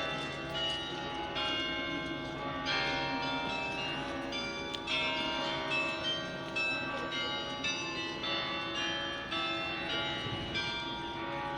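Several church bells ringing at once, their strikes overlapping in a continuous jangle of long, ringing tones.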